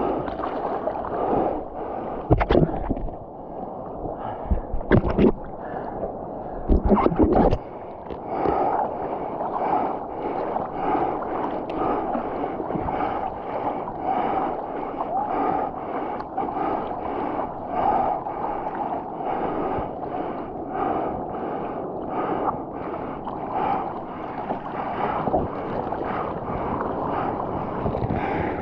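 Water splashing and sloshing around a surfer on a longboard. There are a few sharp, loud splashes in the first several seconds, then a steady, even rhythm of strokes through the water.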